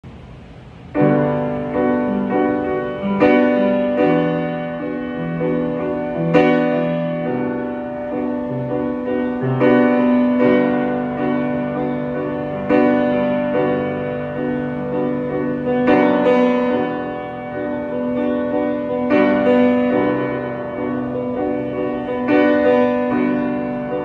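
Solo upright piano playing a slow introduction of held chords, starting about a second in, with a new chord struck roughly every three seconds and left to ring.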